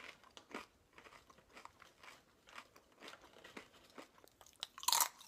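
A person chewing crunchy nut-and-rice crackers (Blue Diamond Nut-Thins), faint irregular crunches a few times a second, louder near the end.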